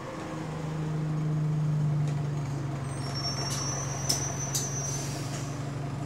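Single-decker bus engine heard from inside the passenger cabin, a steady low drone that swells about a second in, on a bus with an exhaust leak. Between about three and five seconds in, a high-pitched squeal and three short sharp hisses cut across the drone.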